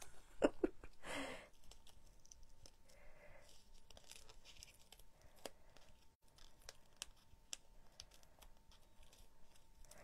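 Faint paper rustling and light clicks as thin die-cut cardstock letters are eased out of their sheet and handled, with one sharper click about half a second in.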